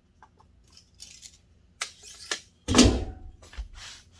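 Steel tape measure being pulled out and handled: a string of short metallic scrapes and clicks, with one louder knock a little under three seconds in.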